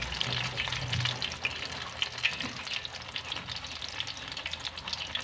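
Battered wild ohong mushrooms deep-frying in a wok of hot oil, a steady sizzle dense with small crackles.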